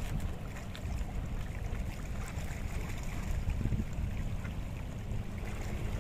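Wind rumbling steadily on the microphone over the faint wash of small waves against the shore rocks.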